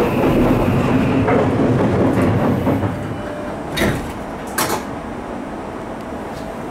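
Running noise inside an Odakyu 5000 series electric commuter car: a steady rumble with a high whine that dies away about three seconds in as the train comes to a stop, leaving a quieter steady background with two short bursts of noise.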